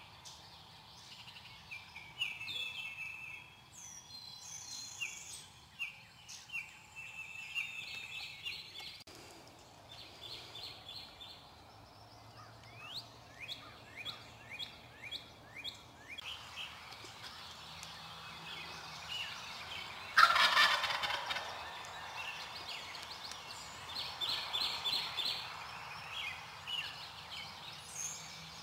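Eastern wild turkey gobbler gobbling once, loud, about twenty seconds in, a rapid rattling call lasting about a second. Songbirds chirp and sing in repeated short phrases throughout.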